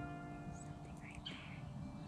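Background acoustic guitar music, a strummed chord ringing and fading away, with a few faint high bird chirps around the middle.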